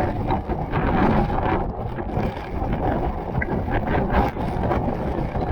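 Steady rush of a large waterfall, the falling water heard as a dense, unbroken roar, with wind buffeting the microphone.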